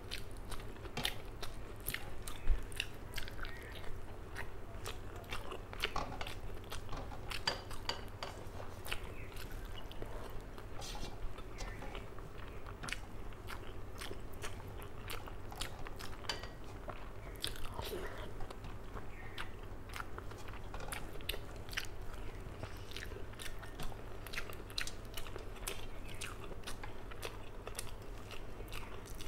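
Close-up chewing of rice and fish curry eaten by hand: wet mouth smacks and many small sharp clicks, with fingers squishing and mixing food on a steel plate, over a steady low hum.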